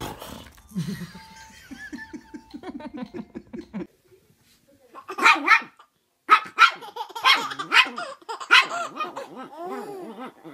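A baby laughing in quick rhythmic bursts. Then a small dog barks sharply, about half a dozen times, while a baby laughs back between the barks, the laughter carrying on after the last bark.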